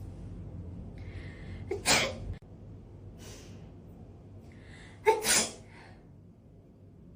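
Two AI-generated human sneezes, each after a quick inhale: the first about two seconds in, the second about five seconds in with a double burst.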